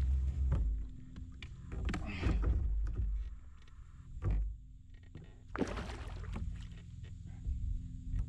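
Water splashes and short knocks around a fishing kayak while a hooked smallmouth bass is fought on a bent rod, over a steady low rumble of water and wind. The splashes come in three bursts, about two seconds in, briefly just past four seconds, and near six seconds.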